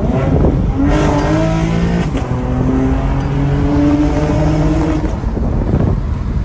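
Chevrolet Camaro engine revving as the car accelerates. Its pitch climbs steadily for about four seconds, with a short break about two seconds in, then falls away.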